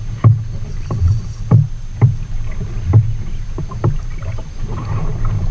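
Sea water slapping against the hull of a plastic fishing kayak in a chop: a series of irregular sharp knocks, one or two a second, over a steady low rumble.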